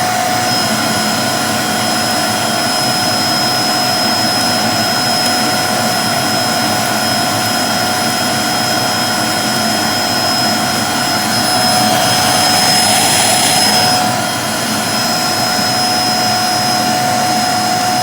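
Vacuum cleaner running steadily with no tube fitted: a motor whine over rushing air, in a demonstration of its suction, which the owner says is not very strong. About twelve seconds in, the rush of air grows louder for a couple of seconds, then drops back briefly.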